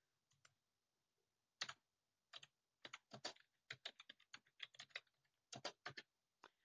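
Faint typing on a computer keyboard: a quick run of short keystroke clicks starting about a second and a half in, as a search phrase is typed.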